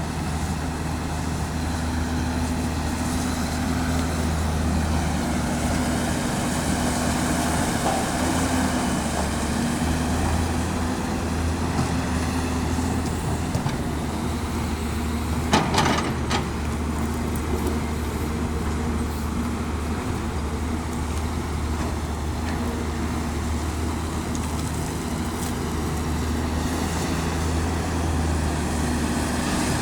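Caterpillar 329D L hydraulic excavator running steadily under load while loading spoil, its engine tone rising and dipping slightly as the hydraulics work. A brief clatter of knocks about halfway through.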